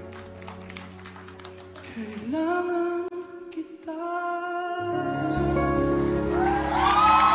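Slow live pop ballad intro: soft sustained chords, then a male singer's long held, wordless notes over them from about two seconds in. A deeper bass layer enters halfway through, and audience cheering swells in near the end.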